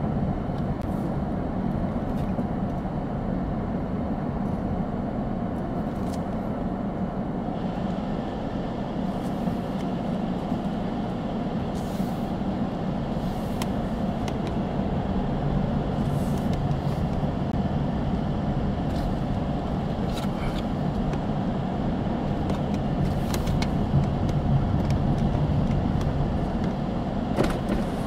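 A car driving slowly, its engine and tyres making a steady low running noise, with a few faint scattered clicks.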